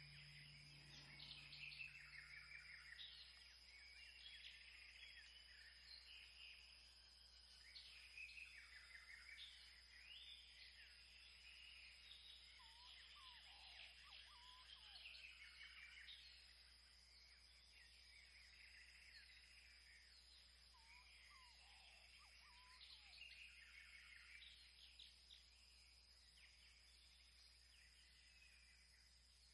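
Faint birdsong: many small birds chirping and trilling, with a few lower calls in the middle, thinning out toward the end. A faint steady high tone lies under it.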